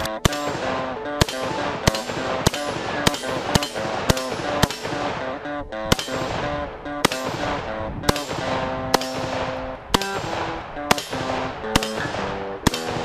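AK-pattern semi-automatic rifles fired shot after shot, about twenty shots at roughly one to two a second, over background music.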